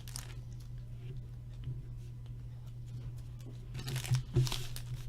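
Hockey card pack wrapper tearing and crinkling, briefly at the start and again in a cluster about four seconds in, over a steady low hum.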